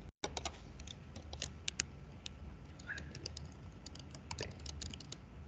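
Typing on a computer keyboard: a run of irregular key clicks, several a second, after a very brief cut-out in the sound right at the start.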